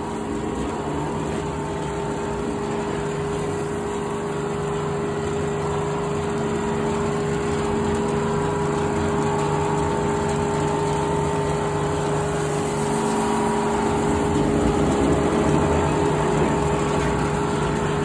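Frick circular sawmill running empty, its large blade spinning freely with nothing in the cut, over the steady drone of the engine driving it. It is a warm-up run after the mill has sat unused for a while.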